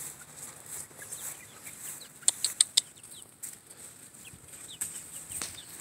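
Backyard chickens foraging in grass, giving scattered soft short calls, with a few sharp clicks about two to three seconds in.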